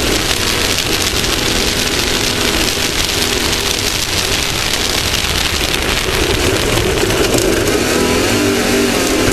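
Onboard sound of an off-road race vehicle's engine running under load at speed, under a steady loud rushing noise. The engine note grows stronger and louder about six seconds in.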